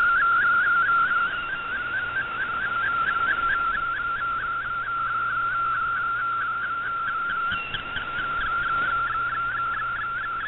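Shortwave Radiogram MFSK picture transmission heard through a shortwave receiver: one whistling tone with a fast, even string of short upward chirps, over a background of radio hiss.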